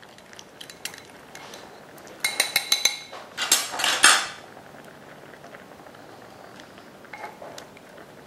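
A spoon clinking and scraping against a glass mixing bowl as a thick sauce is stirred and scraped out, with two quick runs of clinks about two and three and a half seconds in.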